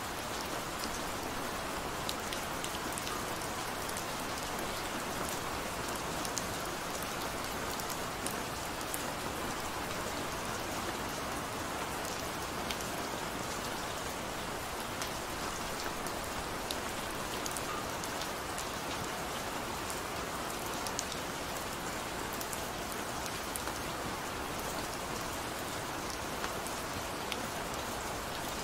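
Gentle rain falling steadily: an even hiss with scattered faint ticks of single drops.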